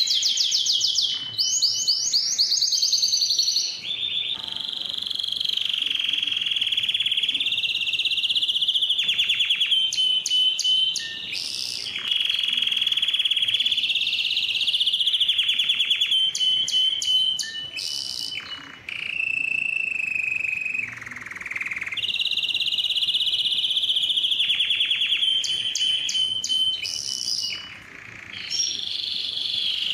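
Domestic canary singing continuously: long rolling trills held around one pitch for a few seconds each, alternating with bursts of very fast, high repeated notes and a few brief pauses.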